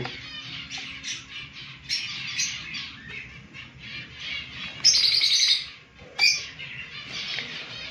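Lovebirds chirping and chattering in quick, high calls, with one louder, higher squawk about five seconds in. A single sharp knock from the wooden nest box comes just after six seconds.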